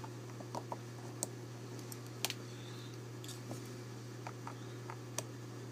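Scattered small clicks and taps of hands and tools working at a Dexter deadbolt's lock cylinder, trying to get it out, over a steady low hum. The loudest click comes a little over two seconds in.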